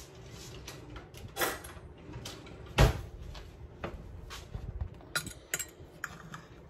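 Kitchen handling sounds: a sharp knock near the middle, with lighter knocks and clicks before and after, as a utensil is fetched and a spatula is worked against a glass baking dish to lift out a piece of cornbread.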